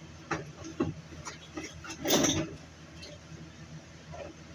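Handling noises from heavy cable and tools: a few light clicks and knocks, with one louder, longer rustling knock about two seconds in.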